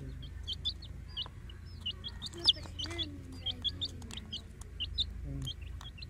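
Baby chicks peeping: short, high cheeps in quick succession, several a second, from more than one chick.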